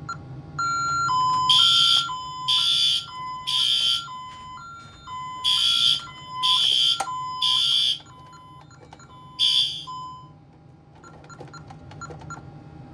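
Fire alarm horns sounding in the temporal-three pattern (three blasts, a pause, three more, then one more blast) over a steady high-low two-tone beeping, as a Honeywell Vista 20P fire panel runs a fire drill. Everything stops about ten seconds in.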